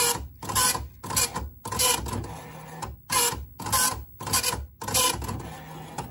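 Commodore 1526 (MPS-802) dot-matrix printer printing a graphic. Its print head rattles across the paper in short passes about twice a second, with brief breaks between them and a quieter stretch near the middle.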